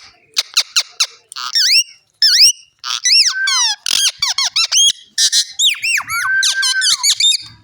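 Pet parrot making a rapid run of high-pitched squeaky whistles and chirps, many short notes that sweep up and down, with a longer held whistle near the end.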